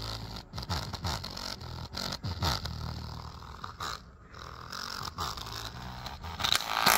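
Small full-range speaker driver being overdriven by a small amplifier, giving out buzzing, rattling, distorted bass with repeated falling tones and many short crackles. Its voice coil is damaged and starting to lock up, so the cone scrapes and rattles instead of playing cleanly. A louder noisy burst comes near the end.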